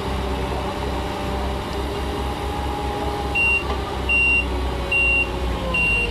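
Vehicle's reversing alarm beeping, four evenly spaced high beeps starting about halfway through, over a steady low engine rumble.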